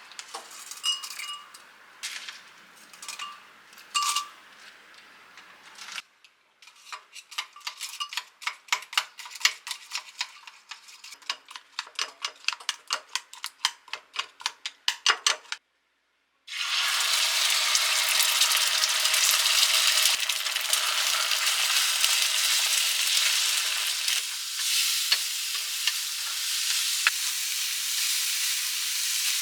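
A few clinks of a utensil, then a fast, even run of taps of a utensil against a bowl, as in mixing. About halfway through, food starts sizzling steadily in a hot frying pan.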